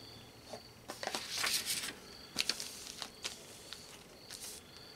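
Rustling of a paper sheet and plastic parts bags being handled on a table, with a few light clicks and taps of small metal parts, the busiest rustle about a second in.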